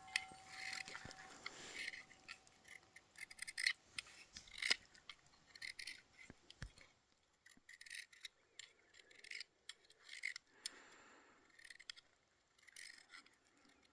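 Knife blade scraping a flint rod, shaving flint onto the tinder: a series of short, irregular scrapes, quickly repeated at first and then more spaced out.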